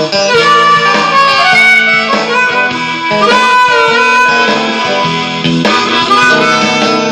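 Hohner Marine Band diatonic harmonica playing a bluesy line, with some notes bent, over a Jackson guitar.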